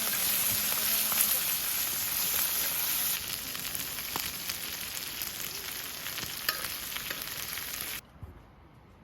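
Food sizzling and spitting in oil on a hot multi griddle, a steady frying hiss with small crackles that cuts off abruptly about eight seconds in.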